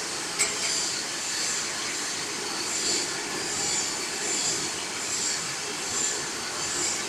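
GD-500 forging roll machine running with a steady mechanical noise while a heated steel bar is rolled in its dies, with a single sharp knock about half a second in.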